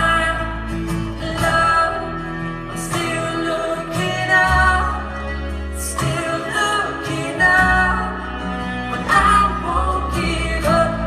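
Live band music with singing: voices over instruments and sustained low bass notes.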